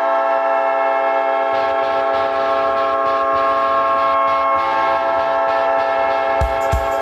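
NHL arena goal horn blaring one steady, many-toned chord. A crowd cheers behind it from about a second and a half in. Near the end a steady drum beat of the goal song starts, about three beats a second.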